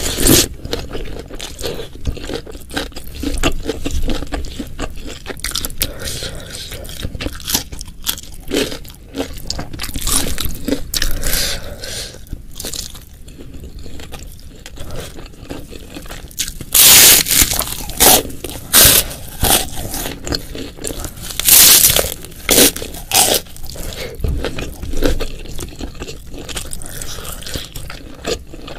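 Close-miked eating sounds: a person chewing and crunching food in the mouth. Two runs of much louder crunchy bites come about two-thirds of the way through.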